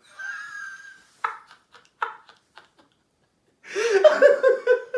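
A man's wordless vocal sounds: a thin, wavering high whine, a few short sharp catches, then about three and a half seconds in a loud, drawn-out voiced sound like a pained laugh or cry.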